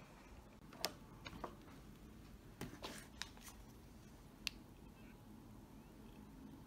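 A few faint, sharp clicks over quiet room tone as a finger presses the side power button of a Dell laptop to switch it on.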